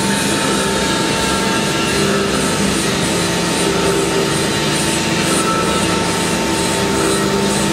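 Railway locomotive turntable rotating: a steady mechanical rumble and grinding from its drive and wheels running on the rail, with a steady whine over it.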